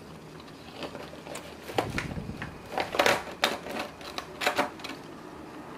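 A run of irregular sharp clicks and crackles from close handling, about a dozen in four seconds, the loudest about three seconds in.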